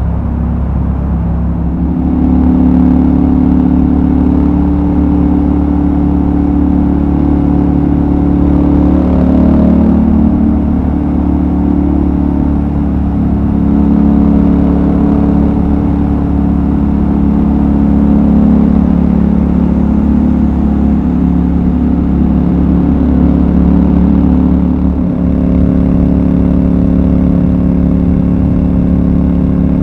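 Royal Enfield Super Meteor 650's parallel-twin engine running as the motorcycle is ridden, its note rising as the throttle opens about two seconds in. The engine note shifts in pitch a few times and dips briefly about three-quarters of the way through before picking up again.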